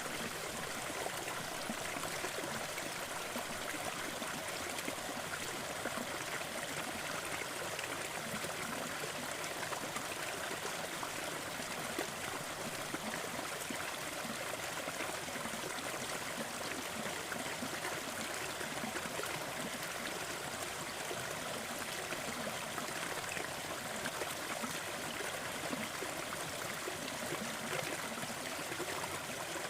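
Small waterfall splashing and running steadily into a forest stream, a constant even rush of water.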